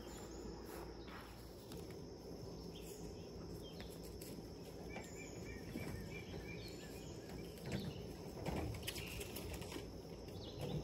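Quiet rural outdoor ambience: a steady low background with a run of faint chirps about halfway through, and a few soft knocks and rustles near the end.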